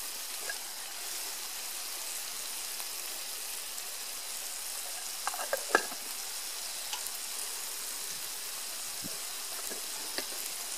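Tomato stew base frying in a nonstick pan, a steady sizzle, with a brief cluster of light knocks a little past halfway.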